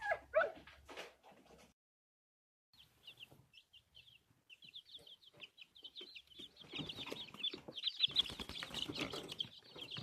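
Young chicks peeping: many short high chirps, several a second, starting about three seconds in, with scratching and rustling in the grass and litter, heaviest near the end.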